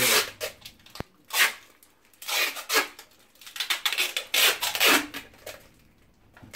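Clear sticky tape being pulled off the roll in several short strips, each a brief ripping noise, with a sharp click about a second in.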